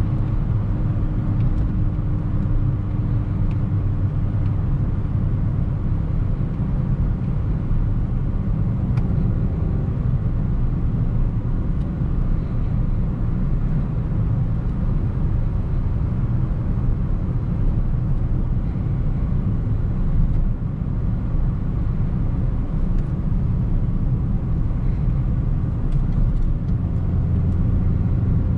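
2008 Suzuki Swift Sport ZC31's 1.6-litre VVT four-cylinder engine running steadily while driving, together with road and tyre rumble.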